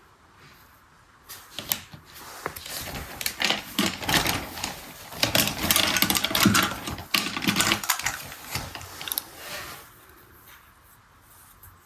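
Mini plastic toy washing machine's manual mechanism clattering with rapid clicks. It starts about a second in, is loudest in the middle and dies away shortly before the end.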